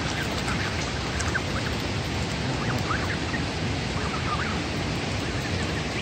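Steady rush of falling water from a waterfall, with the soft splashing of Canada geese and goslings dabbling their bills in the shallows, and short, faint gosling peeps now and then in the first few seconds.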